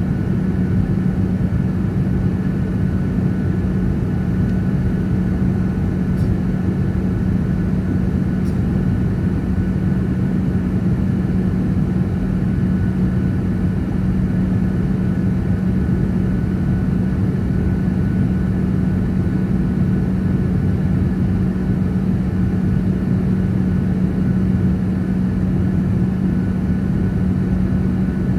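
Airliner cabin noise in flight: a steady drone of engines and rushing air, with a constant low hum running under it.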